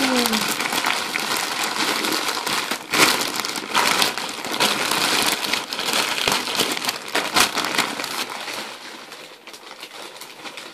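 Parcel wrapping crinkling and rustling as a package is torn open and rummaged through, with scattered crackles. It dies down over the last couple of seconds.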